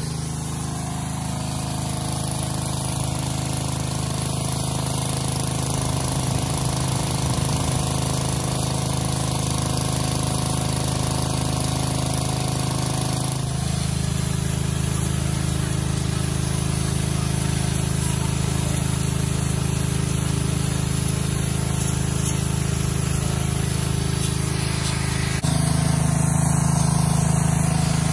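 Gas-engine pressure washer running steadily: a constant engine hum under the hiss of the water jet. The sound shifts abruptly about halfway through and again near the end.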